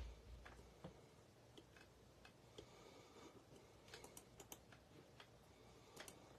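Faint, irregular clicks of typing on a computer keyboard, a small flurry about four seconds in, over near-silent room tone.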